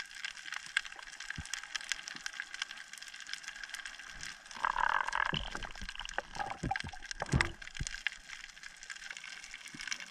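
Underwater sound on a reef picked up by a camera in its housing: a steady dense crackle of fine clicks, with a louder rush of water about halfway through and a few low knocks after it.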